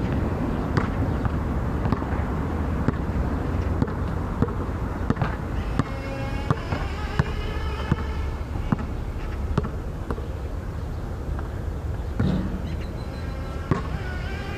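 A basketball bouncing on a hard outdoor court, giving sharp slaps about once or twice a second at an uneven pace, over a steady low rumble.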